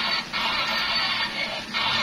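Thin, tinny music with no bass, briefly dipping twice.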